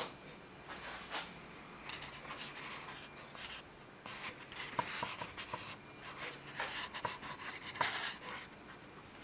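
Faint, irregular scraping and rubbing with scattered light clicks, busier from about four seconds in: hand work taking the top off a Bridgeport milling machine's aluminum head.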